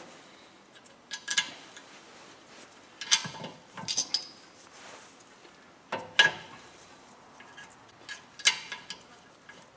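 Metal clinks and rattles of tools and brake caliper hardware as the rear caliper's bolts are started by hand. They come in four short clusters a couple of seconds apart.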